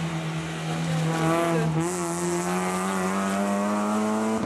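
Rally car engine running at high revs, one steady note with a step in pitch about two seconds in, where a brief hiss also comes in.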